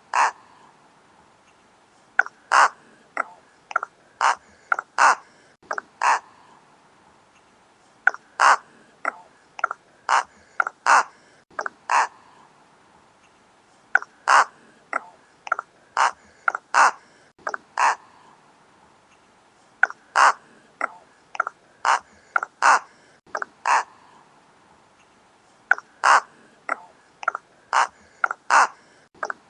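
Rook cawing: short caws in bouts of several, a new bout roughly every six seconds with short quiet gaps between.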